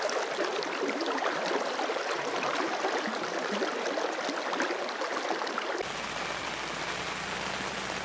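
Steady rushing and splashing of water, with no break. About six seconds in, a low hum comes in underneath.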